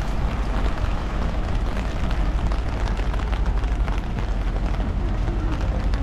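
Steady rain: a dense, continuous patter of drops with a low rumble underneath.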